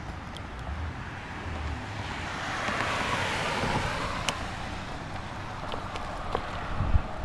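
Wind buffeting the microphone of a camera carried on a moving bicycle, with the tyre hiss of a vehicle passing on the street swelling to a peak and fading away around the middle. There is a brief knock near the end.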